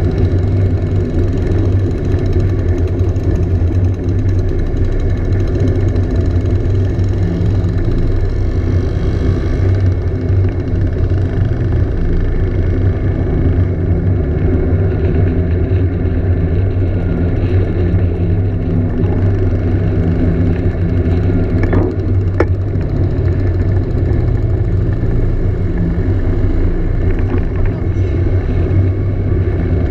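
Scooter engine running steadily at cruising speed under the riding camera, with little change in speed.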